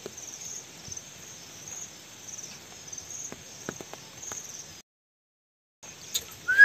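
Insects chirping in a high, steady, repeating pattern, roughly two chirps a second, with a few faint ticks. Near the end the sound cuts out completely for about a second, then a loud whistle-like tone starts.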